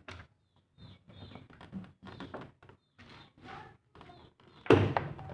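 Light plastic taps, clicks and knocks as the opened top cover and control panel of a Samsung washing machine are handled, with one louder thunk near the end.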